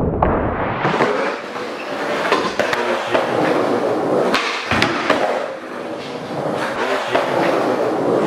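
Skateboard wheels rolling over a rough concrete floor, with a hard knock at the start and sharp clacks of the board at intervals.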